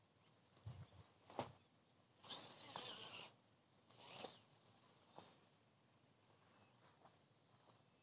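Faint, steady, high-pitched insect drone. In the first half come a few short knocks and two rustling swishes.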